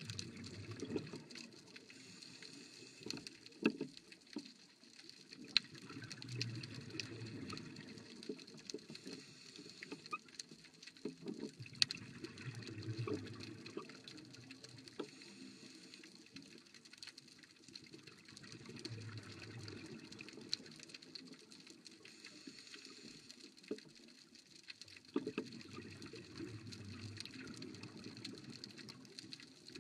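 Underwater sound of scuba divers breathing out through their regulators: bubbling bursts of a few seconds each, about every five to seven seconds, with scattered sharp clicks in between.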